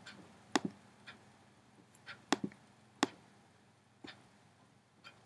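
Sharp, irregular clicks from someone operating a computer, about seven in five seconds, some coming in quick pairs.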